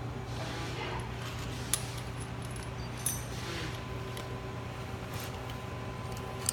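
A few sharp metal clinks of steel hardware and tools being handled on a machine table, over a steady low hum of shop machinery.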